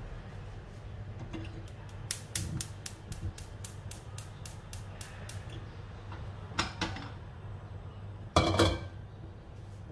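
Gas hob burner's spark igniter ticking rapidly, about five clicks a second for some three seconds, as the burner is lit. Then a couple of knocks and, near the end, the loudest sound, a metal clunk as a wok is set down on the burner's pan support.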